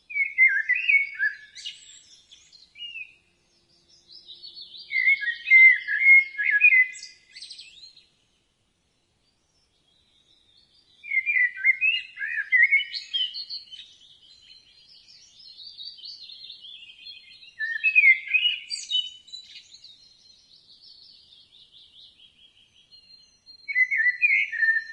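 A songbird singing long, varied warbling phrases of quick chirps and trills, with a pause of about two seconds near the middle.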